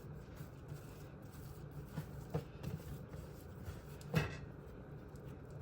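Bread dough being rolled by hand on a floured counter: faint rubbing and soft pats, with one brief louder sound about four seconds in.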